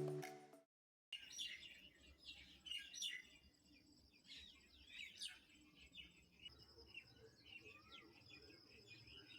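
Background music fading out, then after a brief gap faint birds chirping with many short calls and a faint steady high tone behind them.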